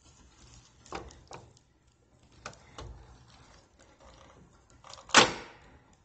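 A door being pushed shut, with a few faint knocks against the frame, then its latch clicking into place with one sharp, loud snap about five seconds in.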